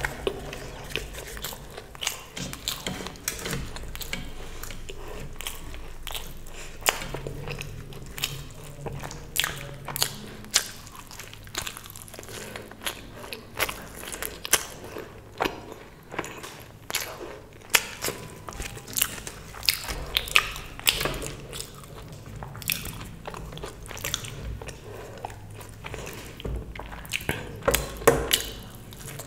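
Close-miked eating: irregular crisp, crunchy bites and chewing of fried Indian food.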